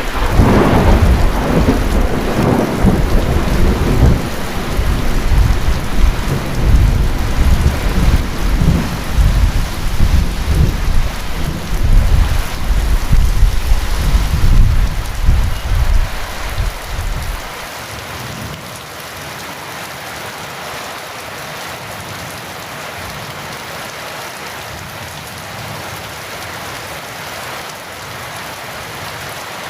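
Heavy rain falling steadily, with a crack of thunder at the very start that rolls on as a deep rumble. The rumble dies away about seventeen seconds in, leaving only the steady rain.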